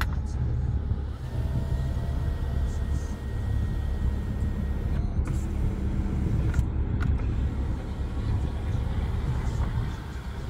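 Mercedes-AMG C43's twin-turbo V6 idling, a steady low rumble heard inside the cabin. From about a second in to about five seconds, the electric sunroof motor gives a faint whine, followed by a few light clicks.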